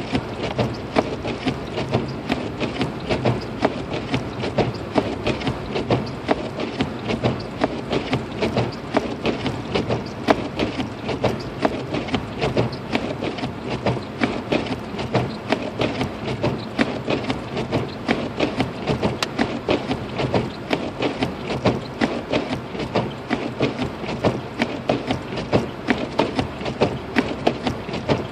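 Inside a Lexus IS250 AWD driving in a snowstorm: a steady low hum of road and engine noise, with rapid, irregular ticking and tapping all the way through.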